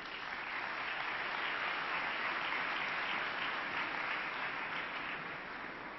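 Audience applauding, the clapping holding steady and then slowly tapering off toward the end.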